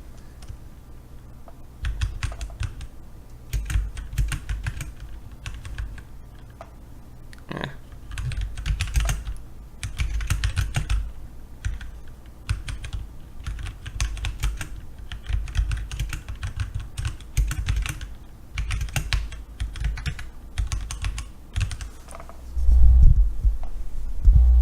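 Typing on a Qisan 68-key mechanical keyboard with Outemu Black linear switches: runs of quick keystrokes with short pauses between them. Near the end there is a loud low rumble, like the microphone being handled.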